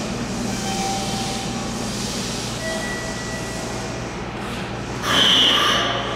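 Steady hum of a Meitetsu 3300-series electric train standing with its doors open at an underground platform. About five seconds in, a loud, high-pitched departure signal sounds for about a second, ahead of the doors closing.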